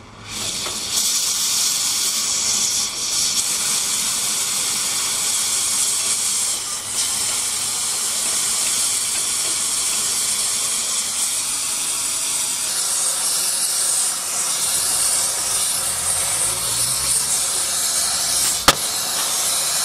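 Gas torch burning with a loud, steady hiss, its flame played onto a rusted fitting on a steam locomotive's underframe. It comes on abruptly at the start, and there is a single sharp click near the end.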